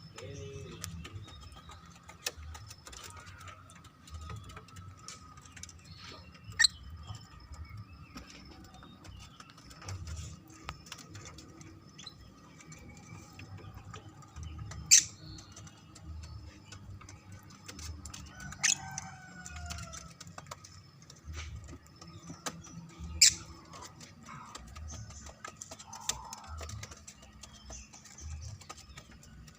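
Lovebird giving occasional short, sharp chirps, about four louder ones spread out, over a faint steady background.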